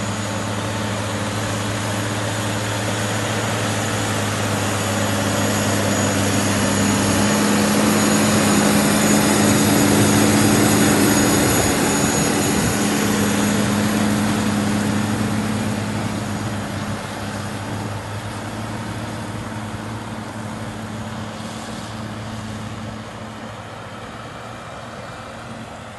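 Deutz-Fahr Agrotron tractor's diesel engine working hard under load as it pulls a reversible plough through stubble, with a steady low hum. It grows louder as it nears, is loudest about ten seconds in as it passes close by, then fades away.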